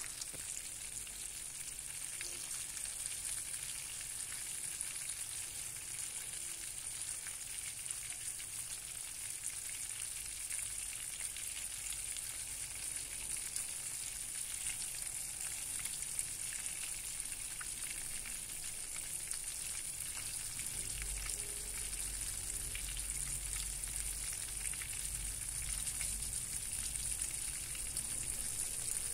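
A salted fish frying in shallow oil in a nonstick pan: a steady sizzle dotted with fine crackles of spitting oil.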